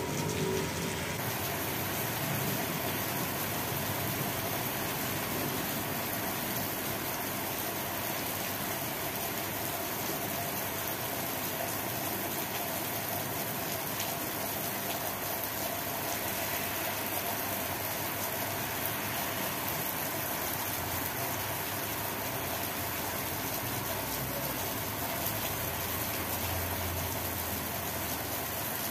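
Steady heavy rain falling, an even hiss with no break. A low rumble rises briefly near the end.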